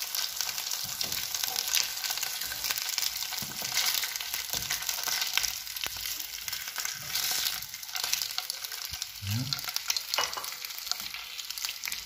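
Breaded chicken breasts sizzling and crackling in shallow oil in a nonstick frying pan, with a wooden spatula scraping and tapping against the pan as the pieces are turned.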